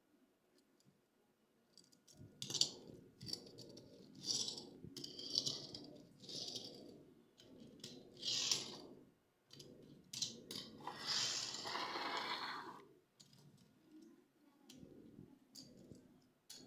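Hands handling the packaging of toy train cars during an unboxing: irregular rustles, clicks and rattles, with a longer scratchy crinkling stretch of about two seconds partway through, then a few faint knocks.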